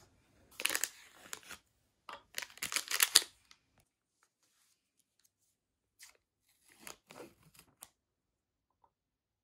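Packaging being handled in three short groups of crisp crinkling and snipping noises, with silent gaps between them.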